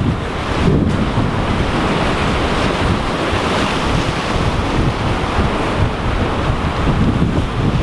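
Surf breaking and washing against the boulders of a rock jetty, with strong wind buffeting the microphone.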